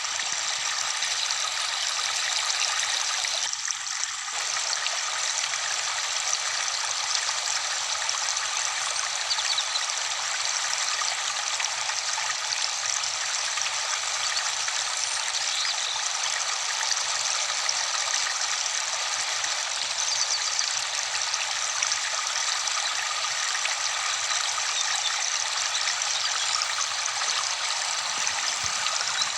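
Steady rush of a waterfall, with a brief dip about four seconds in.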